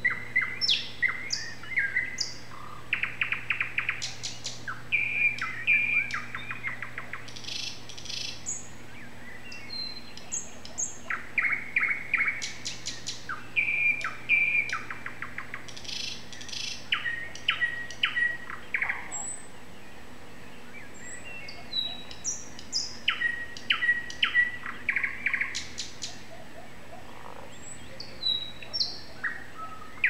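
A songbird singing at night: phrases of rapid repeated notes and short whistles, separated by brief pauses, over a steady low hum.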